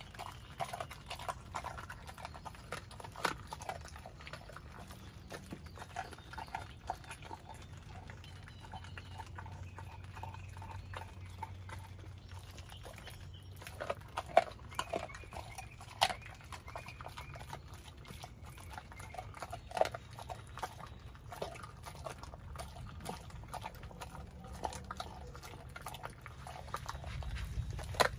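Pit bull chewing a raw whole chicken, crunching the bones: irregular wet crunches and snaps, with a few louder cracks around the middle.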